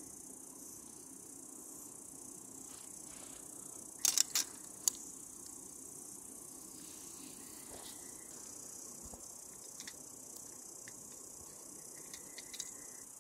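Insects chirring steadily and high-pitched in the background. A few sharp clicks come about four seconds in, and lighter clicks and knocks come near the end as a metal camping pot is handled and set on a twig stove.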